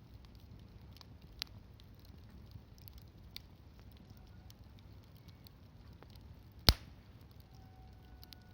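Wood campfire crackling: scattered small ticks and a few sharp pops, one far louder than the rest late on.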